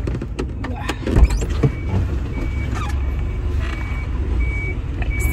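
Pickup truck, heavily loaded with bags of wood pellets, rumbling inside the cab with a few knocks and clunks. From about two seconds in, a short high electronic beep repeats about once a second.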